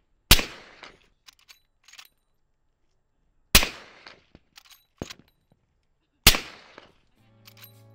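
Three suppressed .45-70 Government rifle shots from a lever-action rifle fitted with a SilencerCo Hybrid 46M suppressor, about three seconds apart, each with a short decaying tail. Lighter clicks between the shots are the lever being worked to chamber the next round.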